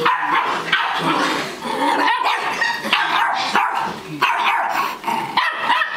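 Puppies barking over and over, short yaps following each other about every half second to a second.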